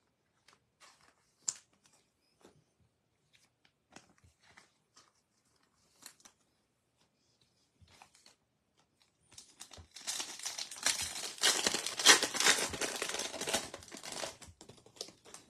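A few faint taps of trading cards being handled and set down, then about ten seconds in a Topps Chrome card pack's wrapper crinkling loudly for several seconds as it is torn open.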